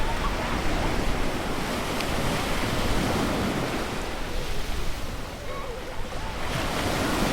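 Ocean surf breaking and washing up a beach in rolling swells, one surge rising and brightening near the end. Faint snatches of people chatting sit under the waves.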